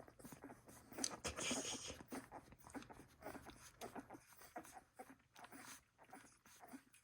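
Litter of 17-day-old Welsh Springer Spaniel puppies nursing: faint, irregular suckling and small puppy noises, a little louder about a second in.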